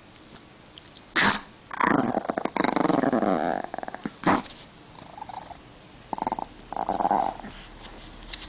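Pomeranian growling in bursts close to the microphone, the longest growl about two seconds long and falling in pitch, with shorter growls after it. It is guarding its favourite string toy as a hand reaches for it.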